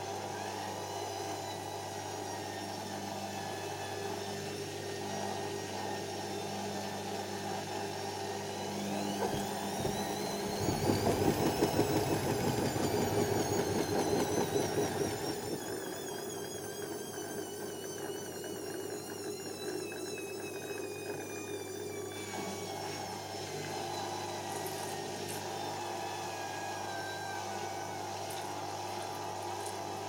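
Hoover Optima OPH714D washing machine with a steady hum underneath. About eight seconds in, its motor whine rises as the drum speeds up, and the drum turns loudly for a few seconds. The whine then falls slowly with a wavering pitch as the drum winds back down.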